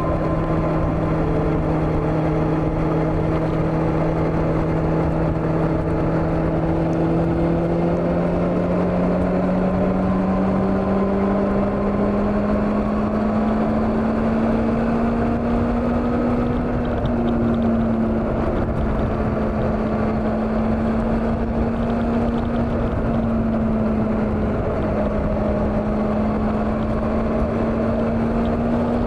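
Old Honda CB400 motorcycle engine running under way, its pitch climbing slowly over the first half as it gathers speed, then holding roughly steady, with a low rush of wind.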